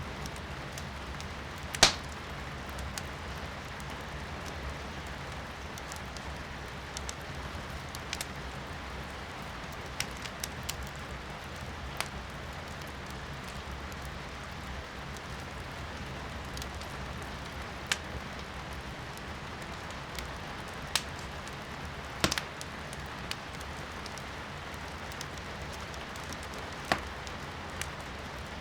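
Firewood burning in a fireplace, crackling with sharp pops at irregular intervals, the loudest about two seconds in. Under it runs a steady hiss of rain heard from inside the room, with a low rumble.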